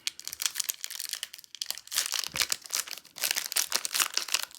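Crinkling and tearing of a trading-card pack's foil wrapper as it is opened: a dense run of crackles with short pauses about one and a half and three seconds in.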